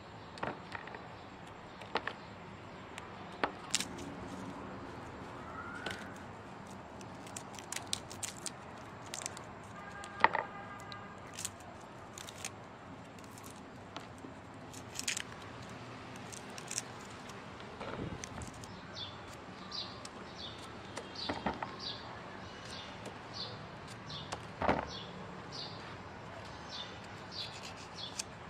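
Scattered soft clicks and taps of hands peeling shallots and garlic and dropping the cloves into a plastic bowl. From about two-thirds of the way through, a bird chirps over and over, a little under twice a second, with short high notes.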